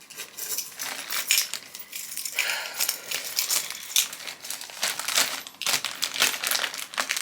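Phone-case packaging being handled and pulled at, crinkling and crackling irregularly as it resists being opened.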